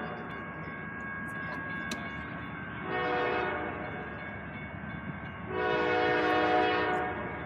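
Horn of an approaching freight locomotive: a short blast about three seconds in, then a longer, louder blast over a steady rumble. The blasts fall in the short-then-long ending of the pattern sounded for a road crossing.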